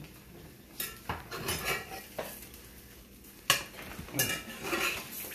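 A metal spoon and cookware clinking and clanking at the stove in several separate knocks, the sharpest about three and a half seconds in.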